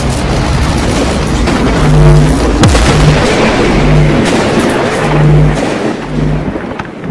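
Cinematic logo-intro sound design: a loud rushing, crackling swell with deep booms and a sharp crack, over a low note that pulses about once a second, easing off near the end.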